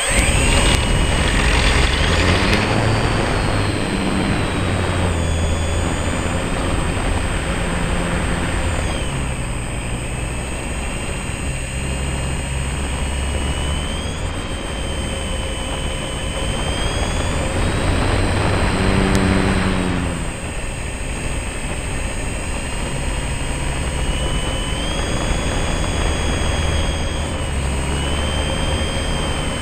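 Electric motor and propeller of an Ikarus Shock Flyer indoor model plane, heard from a camera on board: the motor spools up at the start, then runs with a whine that rises and falls with the throttle, over propeller and air noise.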